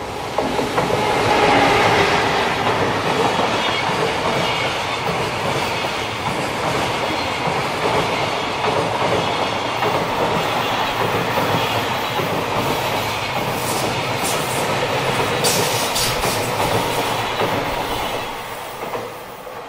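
JR Freight EF210 electric locomotive and its container flat wagons passing close by in a steady loud rumble. Wheels clatter over rail joints in a run of sharp clicks late on, and the noise fades as the last wagon goes by near the end.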